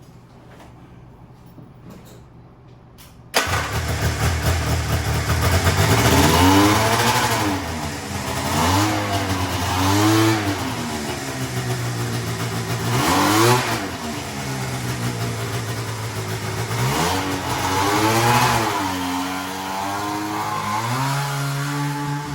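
Yamaha 540 snowmobile two-stroke engine in a homemade kart, coming in suddenly about three seconds in and then revved up and down several times, settling back to a steady run between blips.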